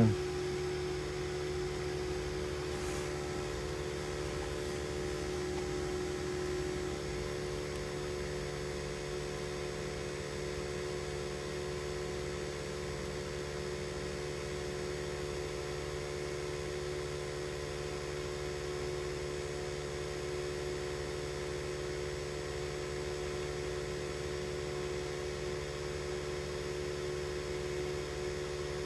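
Steady hum with a few constant tones inside the cabin of a stopped car with its engine running.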